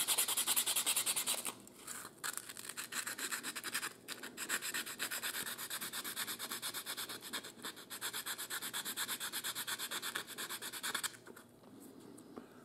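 Sandpaper rubbed rapidly back and forth over the end of a wooden dowel pin, sanding it flush, at about five strokes a second with a couple of brief pauses. The sanding stops about a second and a half before the end.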